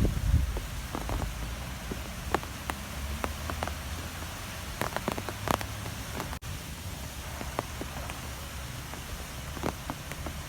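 Strong wind blowing, with a steady low rumble and hiss and scattered sharp ticks and taps throughout. The sound cuts out for an instant about six seconds in.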